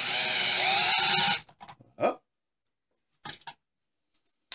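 Cordless drill-driver running with a universal gripping socket on a hexagonal lag screw, driving it into a wooden board. The motor's pitch rises slightly and it stops suddenly about a second and a half in, followed by a few light knocks.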